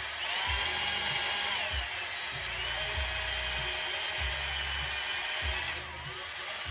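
Cordless drill boring a hole through metal on a Honda CRF110F pit bike, its motor whine dropping off and picking up again about two seconds in, with another change near the end.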